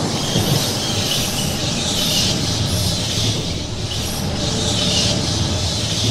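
A loud rushing sound effect: a steady deep rumble under a high hiss that swells and fades several times.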